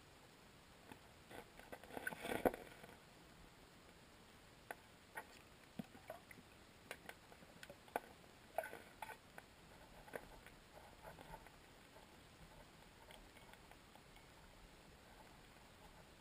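Faint, irregular clicks and knocks, with a short cluster of louder knocks about two seconds in and scattered single ticks after it.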